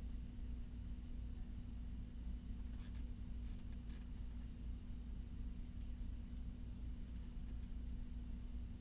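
Insects trilling: one high, steady, fast-pulsing trill and a second one that starts and stops in stretches of a second or so, over a low steady hum.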